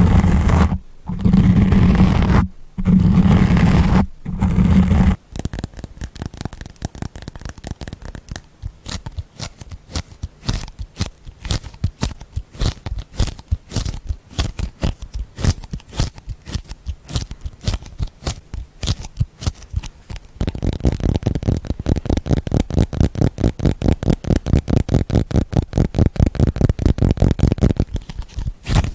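Close-miked ASMR trigger sounds: a few long, muffled rubbing strokes with pauses between them, then fast tapping or scratching at several strokes a second, which turns heavier and deeper about twenty seconds in.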